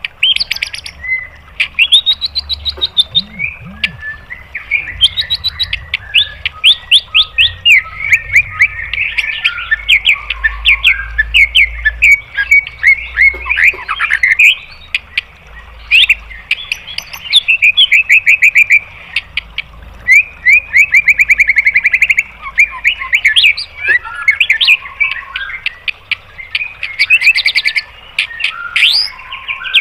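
White-rumped shama (murai batu) singing a loud, varied song: fast runs of rapidly repeated sharp notes, each run a second or two long, mixed with gliding whistles and chattering phrases.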